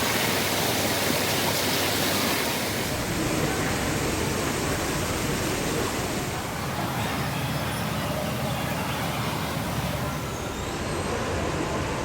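Steady rushing noise whose character shifts about three seconds in and again about six and a half seconds in.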